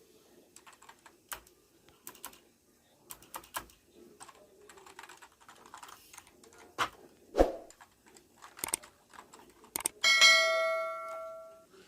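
Keystrokes on a Walton WKM001WB semi-mechanical (membrane) keyboard: irregular, uneven clicks of typing. About ten seconds in, a loud bell-like ding rings out and fades over about a second and a half.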